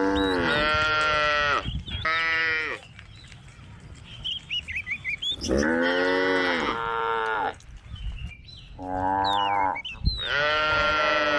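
Cows mooing repeatedly, about five loud, drawn-out calls in turn, some lasting nearly two seconds. Small birds chirp faintly in the gaps between calls.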